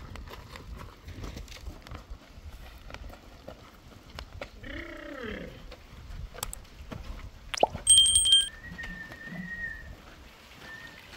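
Metal wheelbarrow loaded with wet cement mix being pushed over rough, stony ground, rumbling and rattling. A goat bleats once about halfway through. About eight seconds in comes a sharp, ringing clank, the loudest sound.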